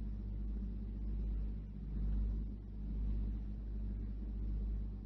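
Steady low electrical hum with a faint low rumble that swells and fades about once a second: the background noise of the talk's recording.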